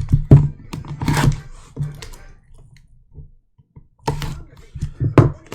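Trading-card boxes and packs being handled and opened: a run of sharp clicks, knocks and rustling, a quiet spell around the middle, then more clicks near the end.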